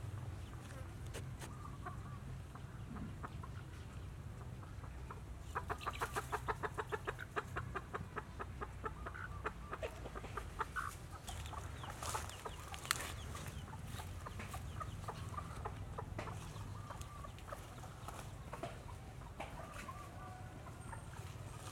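Chickens clucking in the background, with a quick run of calls, about eight a second, lasting two to three seconds about six seconds in, over a steady low rumble.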